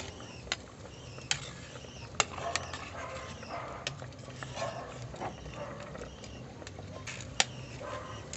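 Kitchen utensils clinking and knocking against a cooking pot: a handful of sharp separate clinks with some lighter clatter between them.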